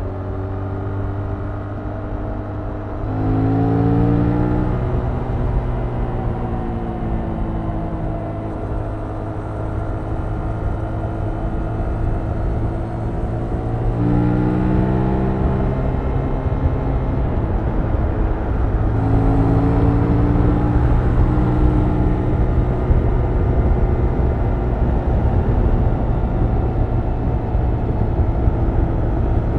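Stock exhaust of a 2021 Yamaha MT-07's 689 cc parallel-twin engine under way, heard from on the bike over a low rumble. The engine note climbs sharply three times as the throttle is opened, about three seconds in, at the middle and a little after, and sags slowly in between.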